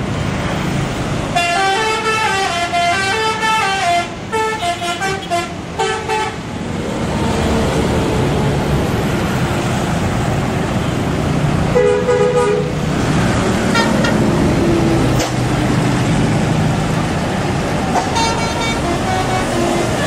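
Tour bus "telolet" horn playing a stepping multi-note tune for several seconds, then a bus engine running as it moves off. A short two-note horn blast comes about twelve seconds in, and more horn notes near the end.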